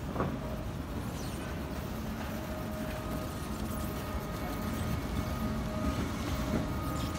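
Small stand-on floor-cleaning machine running, a steady motor hum with a faint whine, growing a little louder as it comes close. A soft knock right at the start.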